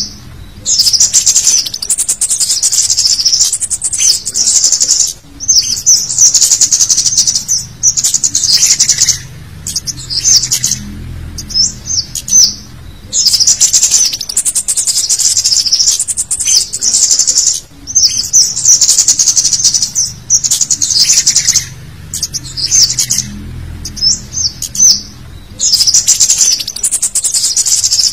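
Cit kemade birds chirping and twittering in rapid, high-pitched bursts of one to three seconds with short pauses between them. This is a busy mix of calls used as a lure to draw wild cit kemade in.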